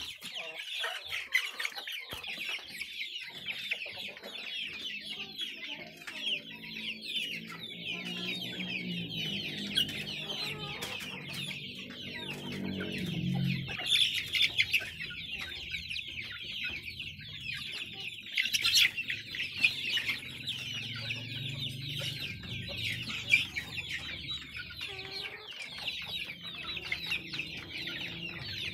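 A crowd of young kampung chickens peeping and chirping without a break while they feed, with lower, drawn-out calls joining in around the middle.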